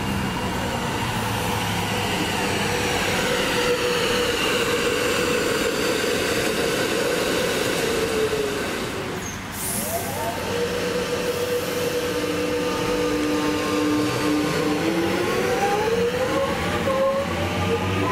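X'trapolis 100 electric multiple unit's traction motors whining as it moves along the platform, the pitch falling. About halfway through, a departing X'trapolis's motor whine holds steady and then climbs in uneven steps as its wheels slip on the wet rail.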